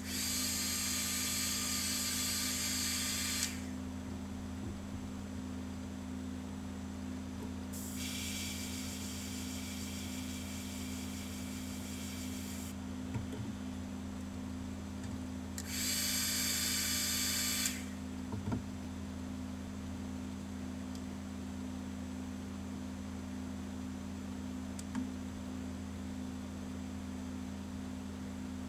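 Airbrush spraying paint in three bursts of hissing air, roughly three and a half, four and a half and two seconds long, over a steady low hum.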